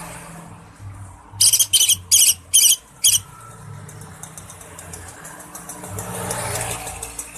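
Cucak ijo (green leafbird) singing: five short, loud, high-pitched chattering phrases in quick succession about a second and a half in, then fainter rapid high ticking notes, over a low background hum.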